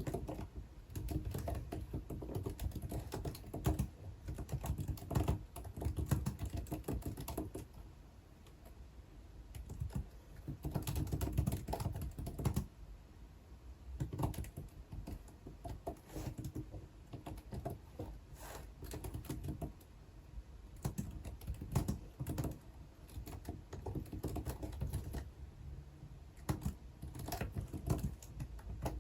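Computer keyboard typing in bursts of rapid keystrokes lasting a few seconds each, with short pauses between the bursts.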